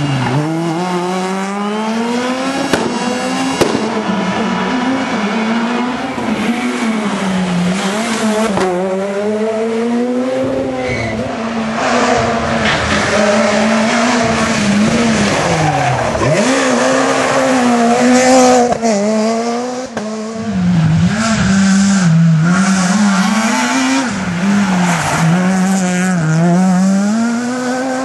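S2000 rally cars' naturally aspirated 2.0-litre four-cylinder engines at high revs on a stage, one car after another. The pitch climbs and drops again and again as the drivers shift gears and lift, with a couple of sharp cracks about three seconds in.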